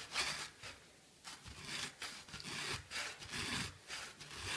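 A blade sawing back and forth through a baseball's tightly wound yarn and its small hard centre ball: repeated rough scraping strokes, about two or three a second, with a short pause about a second in. The core is hard to cut.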